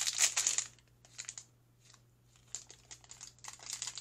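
Shiny plastic surprise wrapper crinkling as it is opened by hand: a dense crinkle in the first second, then a pause, then light scattered crinkles and clicks near the end.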